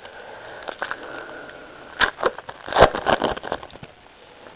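Crinkling and crackling of a foil trading-card pack wrapper being handled and torn open, with a cluster of sharp crackles about two seconds in.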